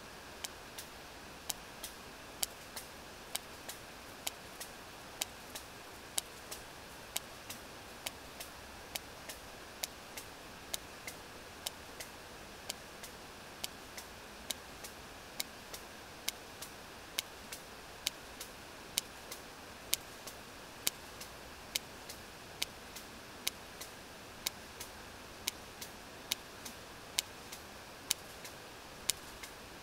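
Sperm whale echolocation clicks picked up on a deep-water hydrophone: sharp, regular clicks about one a second, with fainter clicks in between, over a steady hiss.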